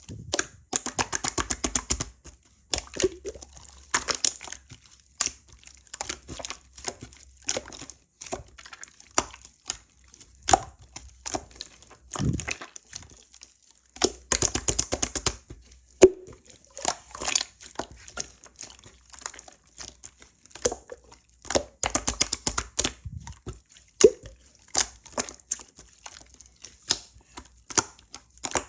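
Purple slime being squished and pressed by hand, giving sharp clicking, crackling pops. These come in rapid runs near the start, about halfway through, and again a few seconds later, with scattered single pops between.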